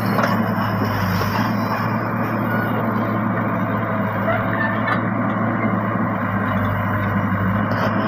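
Wheeled excavator's engine running steadily under load while its boom and bucket lift a coconut palm stump, a constant low hum.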